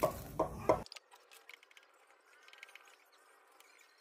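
Kingmax active speaker with no music playing, thumping 'tuk-tuk-tuk' about three times a second over a low hum; the repairer suspects the fault lies in its control board. The noise cuts off suddenly about a second in as the speaker is switched off.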